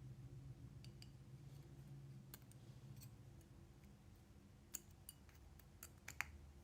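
Faint clicks and clinks of small metal parts of a Sargent & Greenleaf 8088 combination padlock being handled during disassembly. The clicks come more often in the second half, and one sharper click near the end rings briefly like metal.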